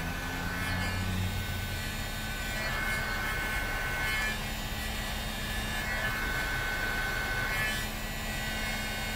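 Electric heat gun running steadily while heating hard plastic: a steady motor whine over a rush of blown air.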